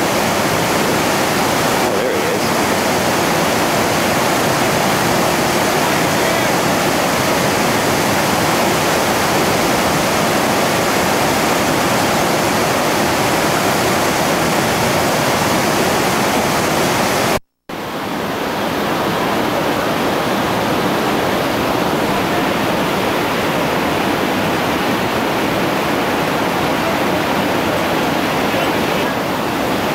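Steady, loud roar of a whitewater rapid pouring over and around boulders. The sound cuts out for a moment a little past halfway, then resumes.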